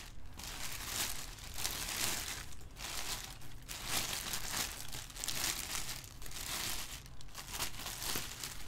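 Clear plastic bag wrapping crinkling as a bagged statue piece is handled and lifted out of its styrofoam packing, in irregular bursts with brief pauses.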